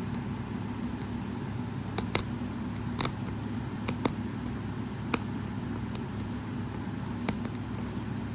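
Scattered light clicks and taps of plastic and thin wire being handled as a small microphone is worked out of a cheap Bluetooth speaker's housing, over a steady low hum.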